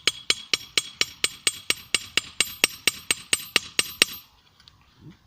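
Hand hammer striking hot steel on a small 25 lb anvil, drawing out a blade from a screw. The blows come at an even pace of about four to five a second, each with a bright ring, and stop a little after four seconds in.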